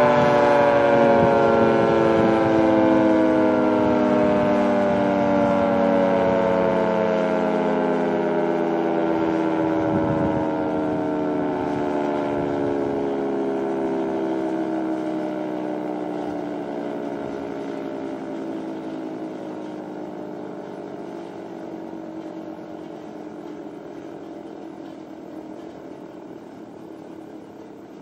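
Federal Signal 3T22 tornado siren winding down at the end of an Alert signal: its chord of several tones slides slowly and evenly down in pitch while fading steadily.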